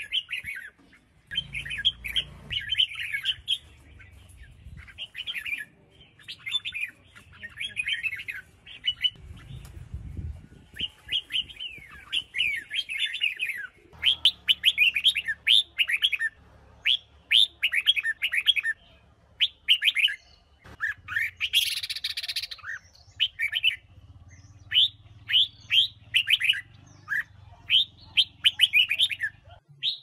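Red-whiskered bulbul singing: repeated short, fast chirping phrases with brief pauses between them, and a harsher, noisier burst about two-thirds of the way through. It is a female's song, of the kind played to caged males to spur them into singing.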